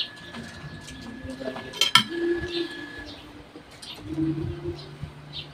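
Doves cooing in short low notes, with a spoon clinking on a dish about two seconds in.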